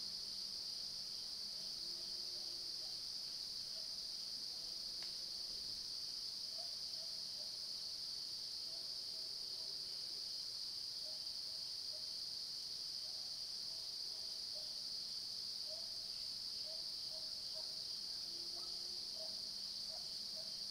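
A steady, high-pitched chorus of insects trilling without a break in late-summer woodland. A faint low hum runs underneath.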